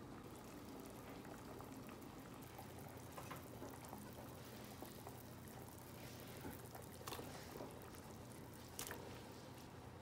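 Chicken and mushroom soup simmering in a stainless steel pot, bubbling faintly, with a few light clicks a few seconds apart.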